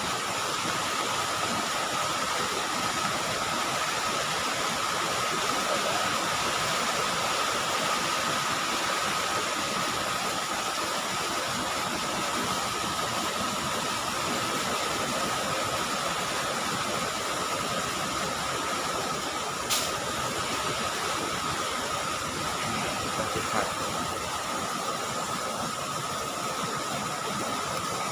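Steady hiss of rain and rushing water after a downpour, with a faint steady high tone over it and one sharp click about two-thirds of the way through.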